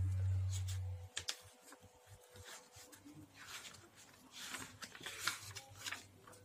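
A low hum that cuts off about a second in, followed by faint rustling and scattered light clicks of handling noise.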